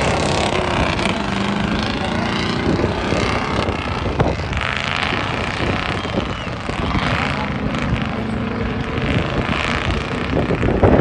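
Off-road truck engine running under load as the truck drives through mud and water, with a steady low drone.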